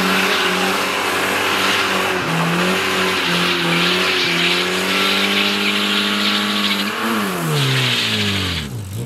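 Car engine held at high revs while drifting, with the hiss of sliding tyres over it; near the end the revs fall away and the tyre noise cuts off.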